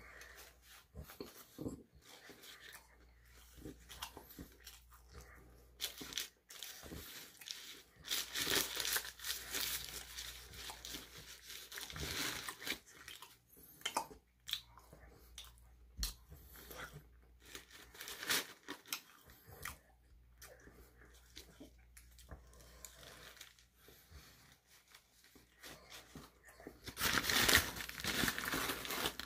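Chewing and biting of a shawarma wrap, with bursts of paper wrapper crinkling and tearing, loudest a third of the way in and again near the end as the wrap is pulled apart.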